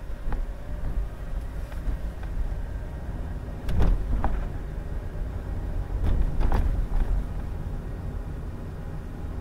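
Car driving along a road: a steady low rumble of engine and road noise. Two pairs of short knocks are heard, the first about four seconds in and the second about six and a half seconds in.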